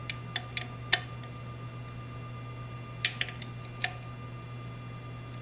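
Irregular metal clicks and clinks of a hand wrench on the exhaust header's flange nuts as they are tightened down. There are a few sharp taps in the first second and a quick cluster about three seconds in, over a steady low hum.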